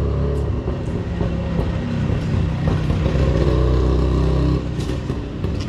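Motor vehicle engine running close by: a low, steady rumble that drops off about four and a half seconds in.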